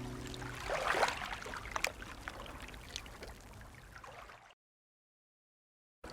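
Ocean wave sound effect: a wash of water surges about a second in, then fades away with a few drips. It cuts to dead silence for the last second and a half.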